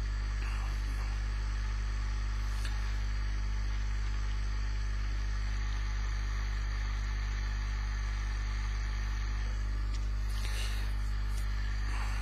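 RomeroUK Muller-type motor generator replica running at a steady speed on one drive coil, its second drive coil switched out: a constant low hum that holds one pitch throughout.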